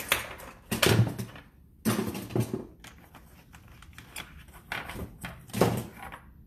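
Plastic and metal cookie cutters clattering against each other and the cardboard box as they are rummaged through by hand, in a few separate bursts of clatter.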